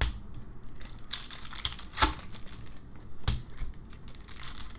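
Trading cards being handled and flipped by hand: light rustling and crinkling, with three sharp snaps as cards are slapped together, at the start, about two seconds in and a little after three seconds.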